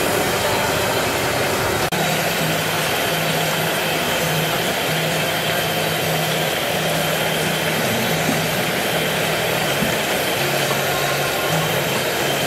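Battered food deep-frying in a large wok of hot oil: a steady, loud sizzle, with a low hum coming and going underneath.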